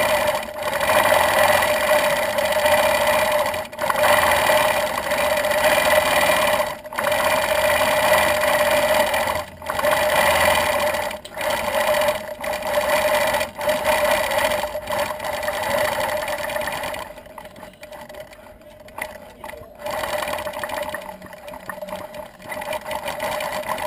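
Gammill longarm quilting machine running and stitching, with a steady hum. It breaks off briefly every second or few, and runs quieter for a few seconds about two-thirds of the way through.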